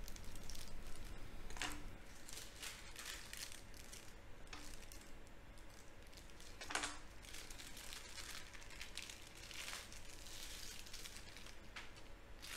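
Faint scraping and light taps of a knife cutting a circle through puff pastry onto plastic film beneath, with crinkling of the film; one sharper click about seven seconds in.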